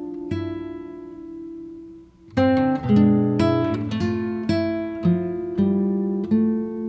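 Background music: acoustic guitar playing plucked notes, which die away to a brief lull about two seconds in before the picking starts again.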